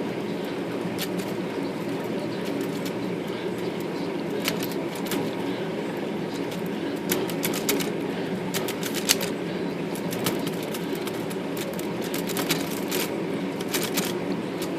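Keys and type bars of a Voss typewriter being pressed and worked by hand, sharp irregular clicks and clacks in clusters. The type bars are sticking at their bottom pivots, and a lacquer thinner soak has not yet freed them. A steady low hum runs underneath.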